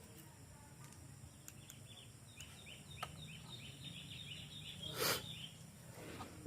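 Faint bird chirping, a quick run of small high chirps, over a low steady hum. About five seconds in comes one short, louder hiss, like a puff of air or spray.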